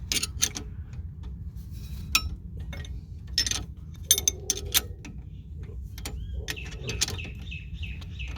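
Ratchet wrench tightening the front brake caliper bolts: scattered metal clinks and knocks of the tool on the caliper, then a rapid run of ratchet clicks near the end.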